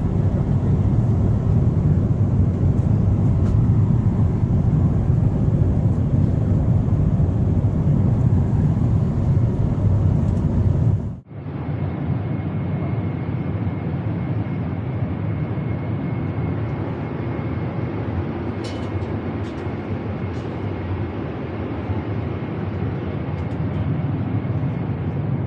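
Steady cabin rumble of a Boeing 777-300ER airliner, engine and airflow noise heard from inside the cabin. About 11 seconds in it cuts abruptly to a second, slightly quieter stretch of cabin noise with a faint steady high tone.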